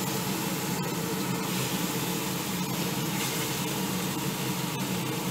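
Sardines and fish roe frying in hot oil in a pan, a steady sizzle with a couple of faint pops, over a steady low hum.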